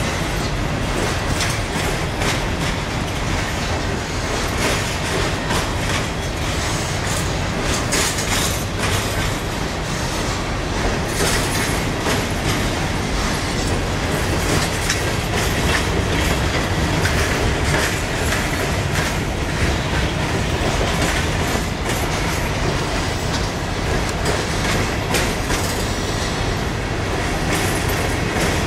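Freight cars of a CSX coal train rolling past, their steel wheels clicking steadily over rail joints under a continuous rumble.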